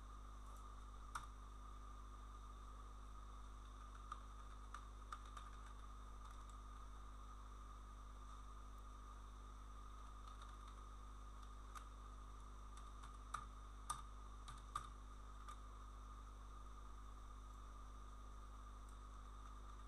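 Faint, scattered clicks of a computer keyboard and mouse, a few keystrokes at a time, with a cluster about four to five seconds in and another around thirteen to fifteen seconds, over a steady electrical hum.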